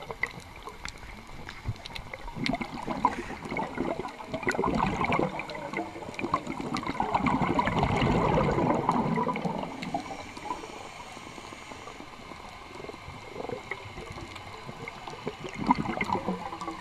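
Underwater audio on a scuba dive: bubbling from a diver's regulator exhalations, swelling briefly a few seconds in, longest around the middle and again near the end, over scattered faint clicks.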